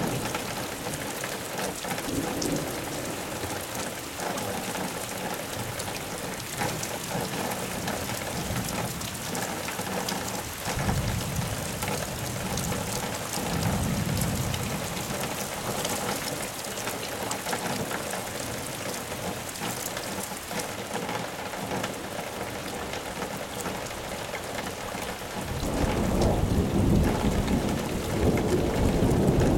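Rain falling steadily in a thunderstorm, with thunder rumbling low a couple of times midway. About four seconds before the end a longer, louder roll of thunder sets in.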